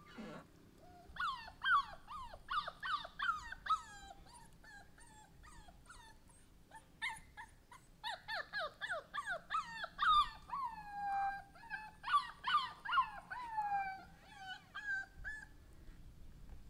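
Puppy whimpering: runs of short, high, falling whines, several a second, broken by a pause of a few seconds, with a couple of longer drawn-out cries in the second half.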